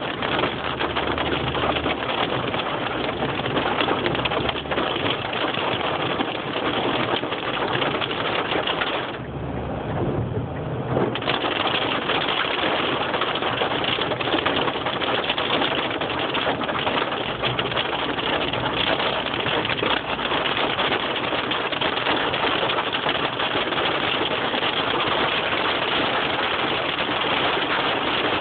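Hail and rain pelting down in a dense, steady clatter of fine ticks, easing briefly for about two seconds around nine seconds in, with a low hum underneath.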